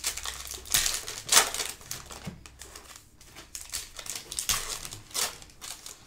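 A foil trading-card pack crinkling as hands tear it open and pull it apart, in a run of short crackly bursts.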